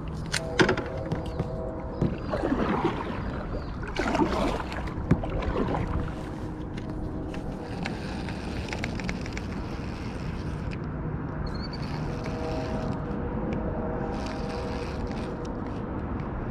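Water sloshing against a kayak hull under a steady rush of wind on the microphone, with sharp clicks and a run of fine ticks from a baitcasting reel being handled and cranked.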